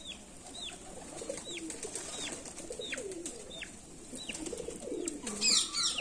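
Domestic pigeons cooing low and warbling while the flock feeds. Over the cooing, a short high peep that falls in pitch repeats about every three-quarters of a second. About five seconds in there is a brief, louder burst of high squeaky calls.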